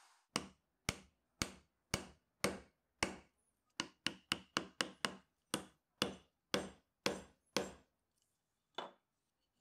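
A mallet striking a bench chisel that is chopping into a dark wenge hardwood block: about eighteen sharp knocks, mostly two a second, with a quicker flurry in the middle and a last single blow near the end.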